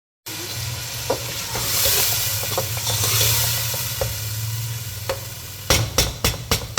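Wet spice masala sizzling in ghee in a cooking pot while being stirred, with a spoon knocking against the pot now and then and a quick run of sharp taps near the end. A low steady hum runs underneath.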